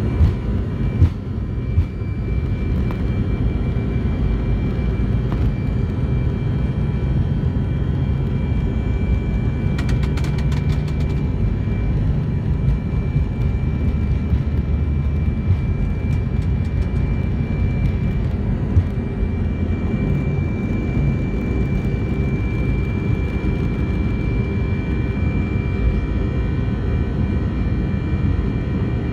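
Airbus A318's CFM56 jet engines at reduced takeoff thrust, heard inside the cabin: a steady deep rumble with a high, even fan whine over it through takeoff and climb-out. A few thumps come in the first two seconds.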